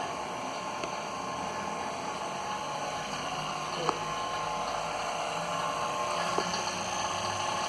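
Refrigeration vacuum pump running steadily as it evacuates a refrigerator's sealed system, a constant hum with a brief tick about four seconds in.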